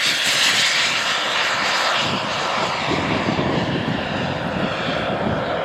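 Turbine-powered RC model jet flying, a steady loud rushing jet noise, with a lower rumble building about two seconds in.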